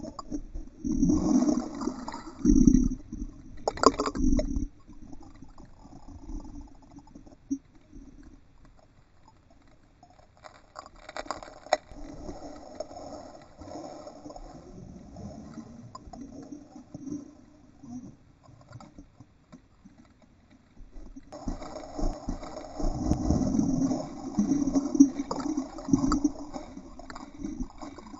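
Muffled sloshing and splashing of lake water churned by an Entlebucher mountain dog's paddling legs, heard from a camera in an underwater housing just below. It comes in busy stretches at the start and again in the last seven seconds, quieter in between, with a few sharper splashes.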